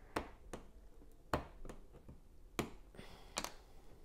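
Plastic Lego pieces clicking and tapping as they are handled and reworked, about seven separate sharp clicks with the loudest a little over a second in.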